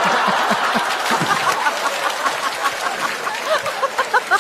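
Studio audience laughing and applauding. The clapping thins toward the end, leaving scattered individual laughs.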